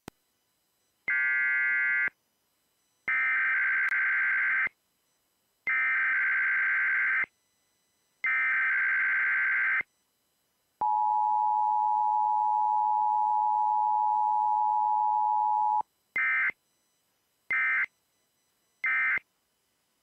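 Emergency Alert System transmission: a short burst and then three longer bursts of warbling SAME digital header data, then the two-tone EAS attention signal held for about five seconds, then three short end-of-message data bursts. No voice message follows the attention tone.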